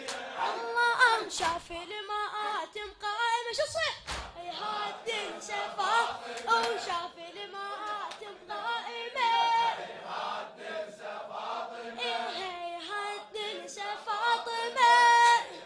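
A male reciter chanting a Shia latmiya mourning elegy in a wavering, ornamented voice, with a congregation of men singing along.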